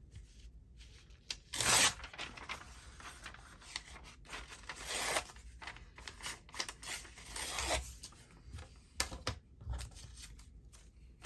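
The margins being torn off a book page: three short paper rips, the loudest about two seconds in, with light paper rustling and a few taps between.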